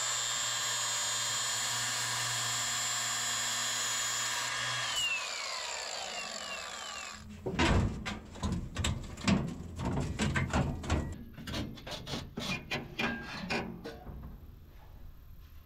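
A power tool runs with a steady whine, then spins down with falling pitch about five seconds in. After that comes a busy run of irregular metal knocks and clanks as hands work in an old truck's engine bay.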